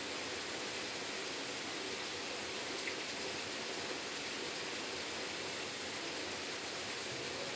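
Steady, even hiss with a faint click about three seconds in.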